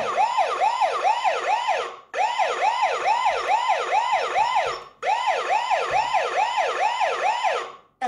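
eufy HomeBase 2 alarm siren wailing in rapid rise-and-fall sweeps, about two and a half a second, in three long bursts with brief breaks. It was set off by the front-door entry sensor being opened, and it cuts off near the end when the alarm is disarmed with the keypad code.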